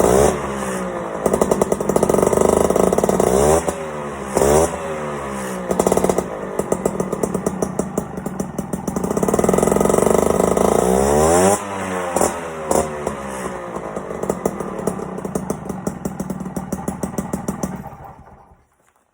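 Piaggio Ciao moped's 50cc two-stroke single-cylinder engine with a Simonini aftermarket exhaust, revved in repeated throttle blips and two longer held revs, its pitch falling back after each. The engine dies away near the end.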